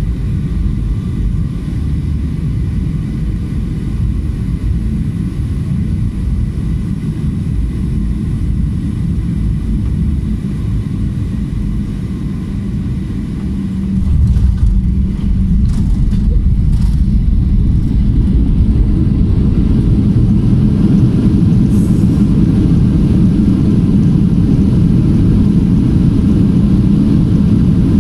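Cabin noise of a Boeing 737-800 landing: a steady jet engine and airflow rumble, then about halfway through a sudden jump in loudness with a few thumps as the wheels touch down. After that comes louder, brighter engine noise as the engines spool up for reverse thrust on the landing rollout.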